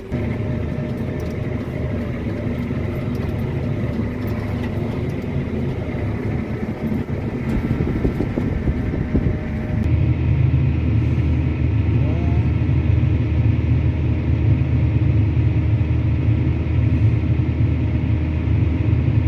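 Heavy diesel farm machinery running steadily with a constant engine drone. About halfway through the sound switches abruptly to a louder, deeper engine rumble.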